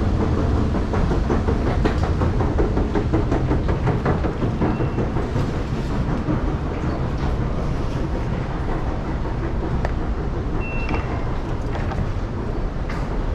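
Tube station escalator running, a steady rumble with a fast clatter of its steps, easing as the walk moves into the ticket hall. Short high electronic beeps, like ticket-gate readers, sound a few times, mostly near the end.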